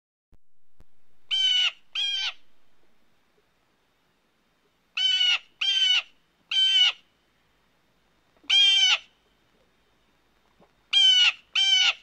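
Blue jay calling: eight short calls in quick groups of two, three, one and two.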